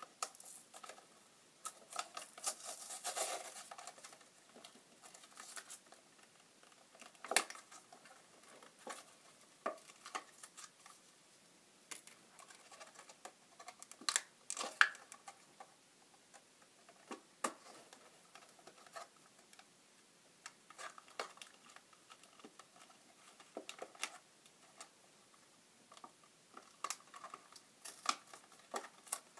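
Handling of a fingerboard ramp set's plastic packaging and parts: irregular clicks, taps and rustles, with a longer rustle about two to four seconds in.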